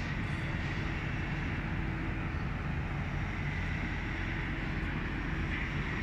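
Diesel truck engine idling steadily, a low even rumble.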